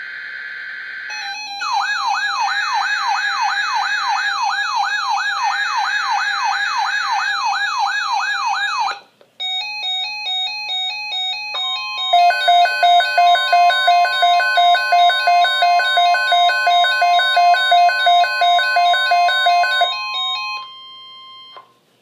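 NOAA weather radio receivers alarming for an incoming alert. A short buzzy burst of digital alert-header data comes first. Then one receiver sounds a warbling siren alarm, sweeping up and down about three times a second for some seven seconds, and after that other receivers beep rapidly in several pitches. Under the beeping, the broadcast's long steady attention tone sounds for about ten seconds and cuts off near the end.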